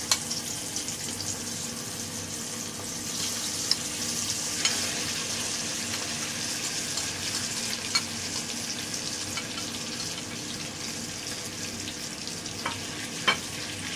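Masala-coated prawns sizzling in hot groundnut oil in a steel kadai, a steady hiss that grows louder about three seconds in as more prawns go into the oil. A few sharp clinks of utensils against the pan and bowl.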